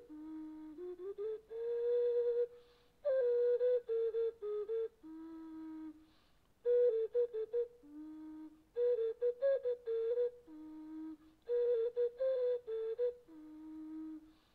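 Background music: a solo flute-like wind instrument playing a slow melody. Held low notes alternate with quick, ornamented phrases a little higher, with short pauses between phrases.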